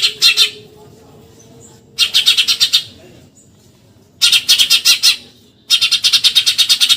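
Eurasian tree sparrow giving its rapid shrill chatter ('tembakan nyerecet'): four quick bursts of fast repeated high notes, about ten a second, the later bursts lasting a second or more.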